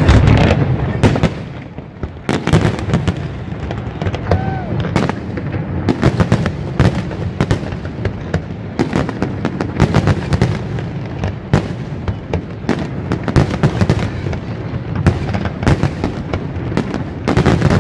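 Fireworks display: many shells bursting in quick succession, a dense run of sharp bangs and crackling pops, loudest in the first second with a brief lull around two seconds in.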